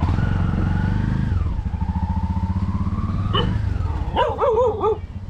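A motorcycle tricycle's small engine runs and revs as it pulls away, its whine rising, dropping about a second and a half in, then climbing again. Near the end comes a short, wavering animal cry.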